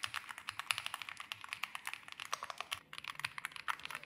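Fast typing on an EPOMAKER Galaxy80 full-aluminium mechanical keyboard: a quick, uneven stream of key clacks, several strokes a second.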